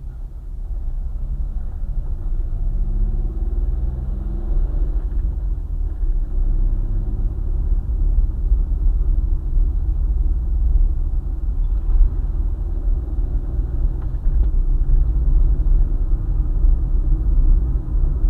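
Car driving on a highway: steady, deep road and tyre rumble, with an engine note rising in pitch about two to five seconds in.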